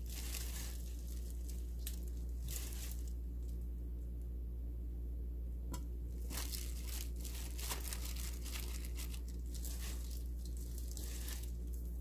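A disposable plastic glove crinkling and seasoned garlic chives rustling as handfuls are lifted and dropped into a glass container, in several short bursts over a steady low hum.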